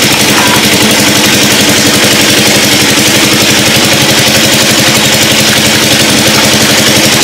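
Small boat engine running steadily at low speed, with a fast, even chug.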